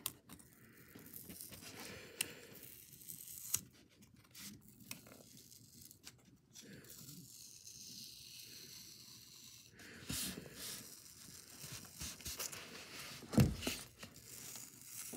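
Old grip tape being peeled off a fingerboard deck by hand: faint, intermittent tearing and rustling with small clicks, busier in the last few seconds.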